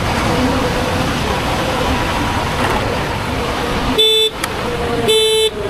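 Two short vehicle horn blasts about a second apart near the end, over steady wind and road noise from riding.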